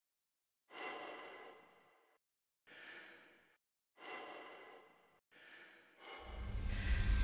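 A person's heavy breaths, four or five of them with pauses in between. In the last second a low rumbling swell rises steadily, building toward a hit.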